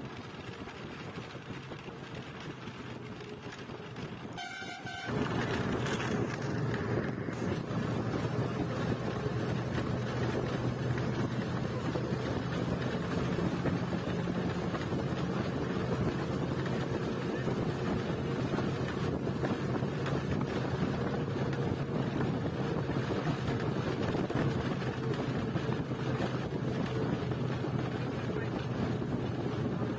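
Express bus on the move: steady engine hum and road noise, with a short horn toot about four to five seconds in. After the toot the noise turns louder and stays steady.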